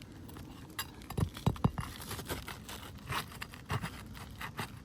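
Irregular scraping and sharp knocks from a roofer working loose and handling roof shingles, with a cluster of louder knocks about a second and a half in.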